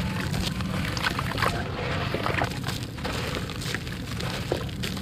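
Handfuls of wet, gritty sand crumbling and falling back into a basin of water: sloshing and pouring with many small gritty crackles, over a steady low hum.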